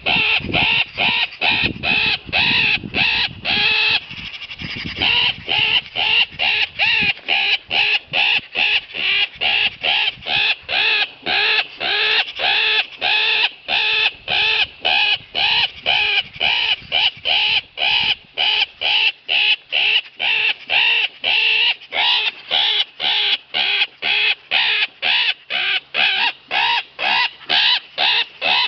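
Magpie-in-distress game call sounded without pause: a steady run of harsh, rasping squawks at about three a second, imitating a magpie in distress to draw in crows, magpies and predators.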